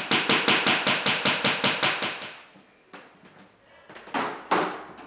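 A hammer tapping a picture-hook nail into a wall: a quick, even run of about fifteen strikes, six or seven a second, lasting about two seconds. Two separate knocks follow near the end.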